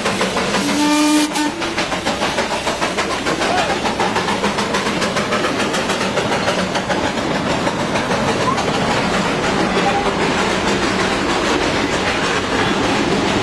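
Darjeeling Himalayan Railway narrow-gauge steam locomotive and train running, with a steady, fast rhythmic clatter. A short toot on the steam whistle comes about a second in.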